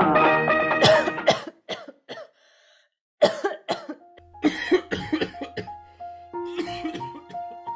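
A song fades out, then a person coughs in short, harsh bursts, twice in a row with a brief silent pause between. Slow keyboard notes start about four seconds in, under the later coughing.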